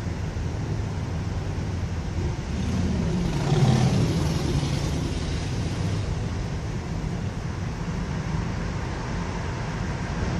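Steady low rumble of vehicles crossing the Williamsburg Bridge, swelling louder for a moment about four seconds in.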